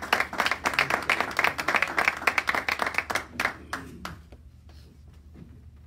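A small audience applauding with close, distinct hand claps. The clapping dies away about three and a half seconds in, leaving a few scattered claps.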